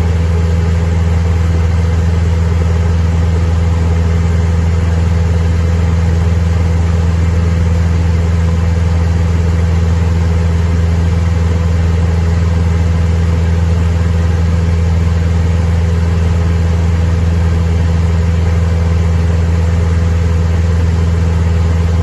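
Cessna 172M's four-cylinder Lycoming engine and propeller running at a steady, unchanging setting: a loud continuous drone.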